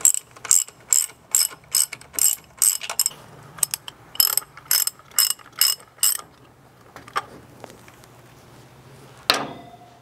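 Socket ratchet wrench with a 9/16 socket clicking in quick strokes, about two a second, as the bolts holding the motor plate to a pool pump motor are backed out. Two runs of clicking are followed by a few faint clicks and a single sharp knock near the end.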